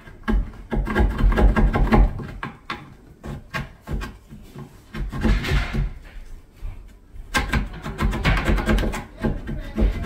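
Flat-head screwdriver scraping and prying at the wood of a door jamb, chipping out the strike-plate mortise in runs of quick scratches and knocks, with a brief lull about seven seconds in.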